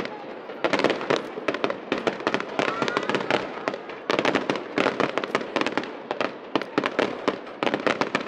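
Aerial fireworks going off in rapid succession: dense volleys of sharp bangs and crackling pops that come in waves, with short lulls between them.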